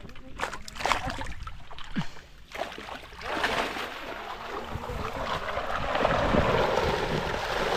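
Water splashing as a keep net full of fish is hauled out of the pond. A few separate knocks and splashes come first, then about three seconds in a louder, steady rush of splashing water.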